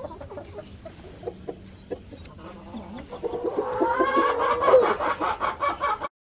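Chickens clucking in short, scattered calls, then a louder run of rapid calls from about three seconds in.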